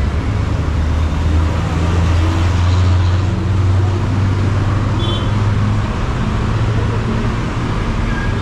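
Road traffic, with a large vehicle's engine running close by as a loud low drone that swells around three seconds in and eases after about six. A brief high beep sounds about five seconds in.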